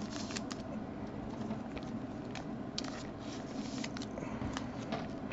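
Trading cards being handled by hand: light rustling, with a few short clicks and taps as cards are moved and set down, over a steady low hum.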